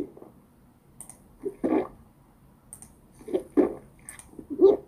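Drinking sound effect: a person gulping water, several swallows in a row, each short and wet, with three louder gulps spaced about a second apart.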